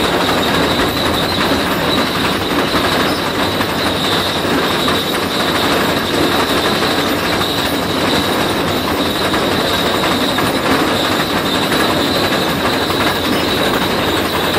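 Tesmec 1475 rock saw trencher cutting through rock: its digging chain grinds steadily as it throws out broken spoil, with a steady high whine running through the noise.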